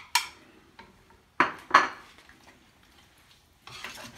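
Kitchenware clatter while beaten eggs go into a frying pan of diced potatoes: two sharp clinks about a second and a half in, then a utensil stirring and scraping in the pan near the end.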